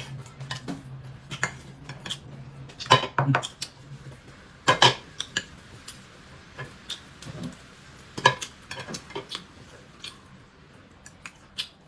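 Tableware clinking during a meal: scattered short clicks and knocks of bowls, plates and eating utensils, the loudest about three, five and eight seconds in.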